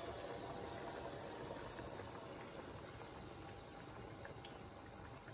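Caramel and soy sauce poured from a saucepan into a hot frying pan of chicken, the sauce bubbling faintly and steadily as it starts to simmer.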